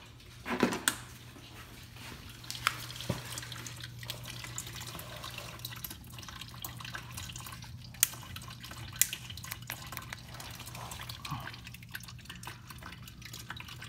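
Red engine coolant draining from the radiator drain of a 6.4 Hemi Chrysler 300 SRT8, pouring in a thin steady stream into a plastic storage bin and splashing in the liquid already collected. A low steady hum runs underneath, and there are a few sharp ticks.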